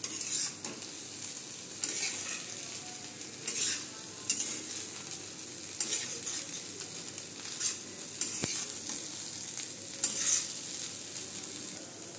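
Metal spatula scraping and turning poha in a kadhai in uneven strokes, roughly one every second or so, over a faint steady sizzle from the pan still on the flame. One sharp click about two-thirds of the way through.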